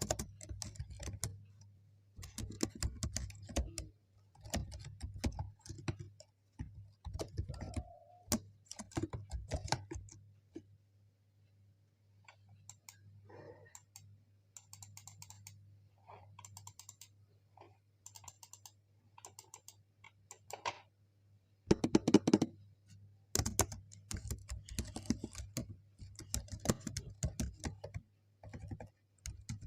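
Computer keyboard being typed on in bursts of rapid key clicks with short pauses. The typing is lighter and softer for a stretch in the middle, then heavier and louder towards the end.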